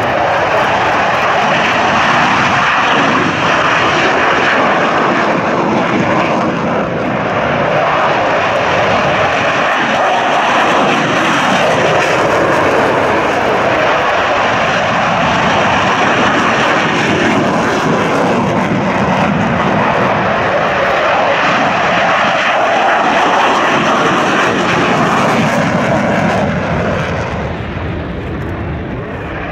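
General Dynamics F-16 Fighting Falcon fighter jets taking off at full power: a loud, steady jet roar. It eases off briefly near the end, then swells again as the next jet starts its takeoff roll with its afterburner lit.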